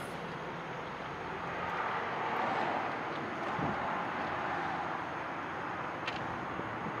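Steady outdoor background noise, like a low rushing hum, swelling a little in the middle, with a couple of faint clicks near the end.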